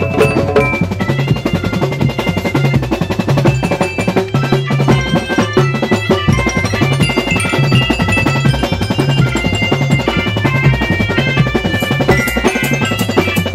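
Percussion-band music: drums keep a steady repeating beat under fast runs of short mallet-struck melodic notes.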